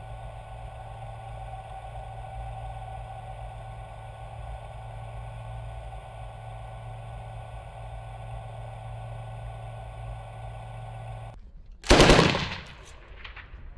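A steady mechanical hum with a low drone, which cuts off near the end. Then comes one short, loud burst of machine-gun fire from a remotely operated mount, dying away over about a second.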